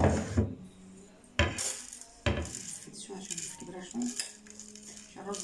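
Ceramic bowl and spoon knocking and scraping against a porcelain platter as a raw rice, onion and herb stuffing is tipped out onto it: three sharp clinks a second or so apart, then softer rustling and scraping of the grains.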